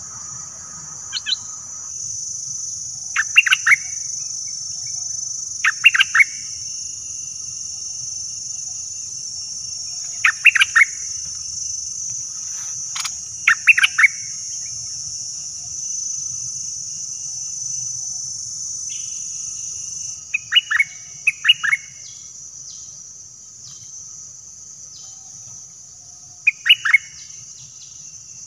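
Stripe-throated bulbuls singing: about seven short, loud, bubbly phrases of quick falling notes, spaced a few seconds apart. Under them runs a steady high insect drone that drops in level about two-thirds of the way through.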